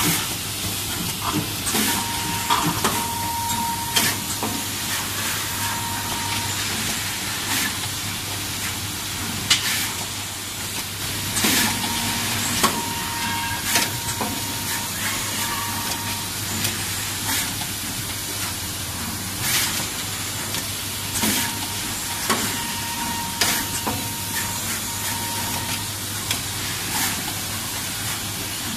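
Automatic odd-form component insertion machine running: a steady air hiss over a low hum, broken by irregular sharp clicks every second or few and short, steady high tones that come and go.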